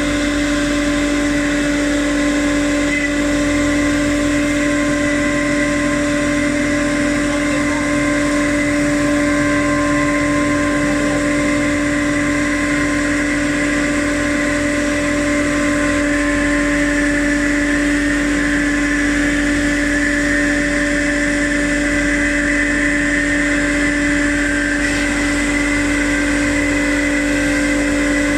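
CNC router running steadily, an unbroken machine hum with a steady higher whine over it.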